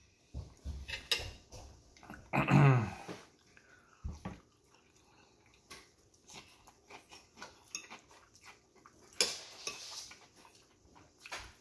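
A metal fork scraping and clinking against a ceramic plate while food is scooped and eaten, in scattered clicks and scrapes. About two and a half seconds in, a short loud vocal cry that falls in pitch rises over it.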